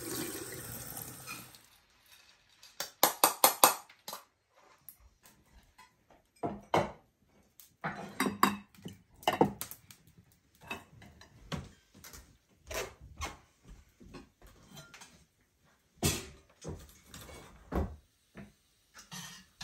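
Water poured over barberries in a steel strainer, splashing into a stainless steel sink, stopping about two seconds in. Then scattered light clicks and clinks of dishes and kitchenware being handled.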